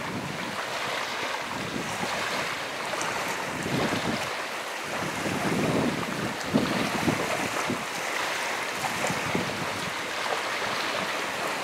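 Wind buffeting the microphone in uneven gusts, over the wash of choppy water.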